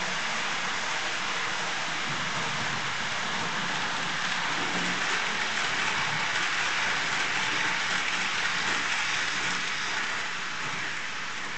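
TT-scale model train (Tillig BR 103 locomotive with IC coaches) running past on its track: a steady rolling hiss of the wheels and motor that swells as the coaches pass close, then eases off near the end.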